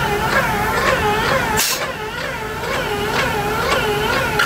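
Graco E-XP2 polyurea reactor's motor and proportioning pump running, a whine that dips and rises in pitch about twice a second. A short hiss about one and a half seconds in.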